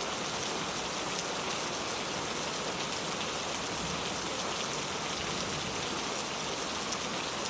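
Steady gentle rain falling, a soft even patter of drops.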